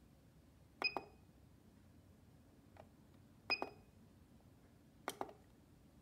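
Push-button control knob on a DIY UV lamp's timer clicked down and up three times. The first two presses each bring a short high beep.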